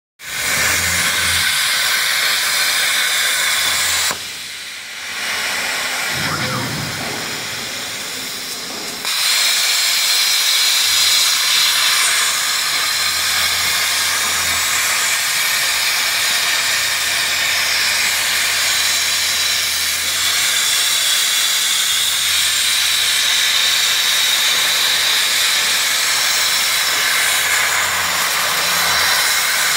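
CNC plasma cutting torch cutting 12 mm steel plate: a loud, steady hiss of the plasma arc and its gas jet. The hiss drops away for about five seconds a few seconds in, then comes back at full strength.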